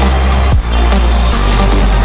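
Loud electronic dance music with a heavy bass line and a steady beat. A sharp bass sweep comes round about every one and a half seconds.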